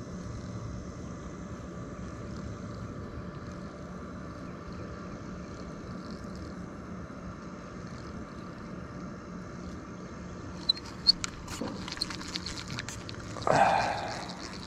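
Barbie kid's plastic spincast reel and rod being handled: a few sharp plastic clicks about ten seconds in, then a short, louder squeaky rub near the end, over a faint steady background.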